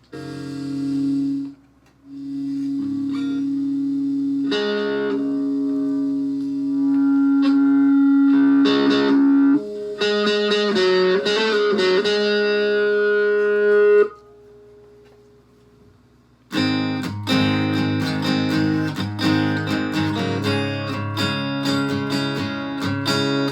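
Acoustic guitar (80s Lotus L-80) amplified through a Bartolini 3AV soundhole pickup, a BOSS DS-1 distortion pedal and a small amp: held single notes and chords left ringing, one note wavering in pitch around the middle, then after a short pause, rapid strummed chords.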